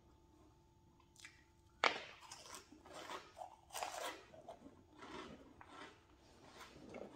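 Crunchy snack chips bitten with one sharp crunch about two seconds in, then chewed with a run of crisp, uneven crunches.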